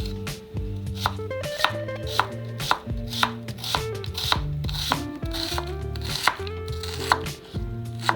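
Knife chopping vegetables on a cutting board, sharp cuts at an uneven pace of about two a second.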